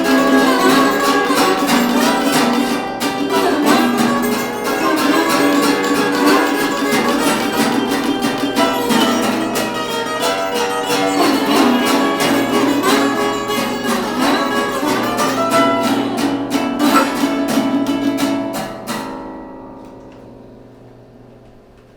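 Acoustic blues played by a small string band, with steadily strummed acoustic guitar over a bass line. About nineteen seconds in the band stops on a final chord that rings away and fades out.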